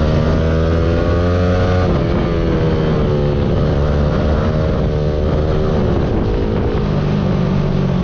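Yamaha R15 V3's single-cylinder engine running loud through an aftermarket exhaust, its revs rising and falling several times.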